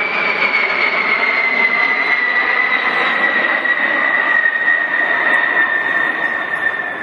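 A Boeing B-52 Stratofortress bomber flying past, its eight Pratt & Whitney TF33 turbofan engines giving loud jet noise with a high whine that slowly falls in pitch as the aircraft moves away.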